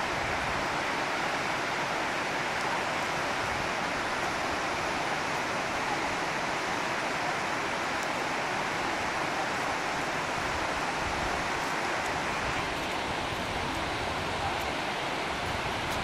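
Steady rushing of a waterfall and the mountain stream tumbling over boulders below it, an even wash of water noise with no breaks.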